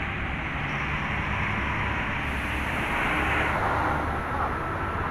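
A double-decker coach's diesel engine running as it drives past close by, over the steady rumble of highway traffic. The rumble thins somewhat about three and a half seconds in.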